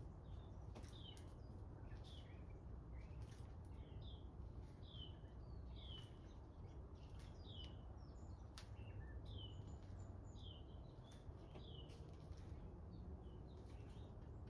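Faint steady low hum of a 2016 Amana heat pump running in heat mode, with a small bird chirping over it in short falling chirps, about one or two a second.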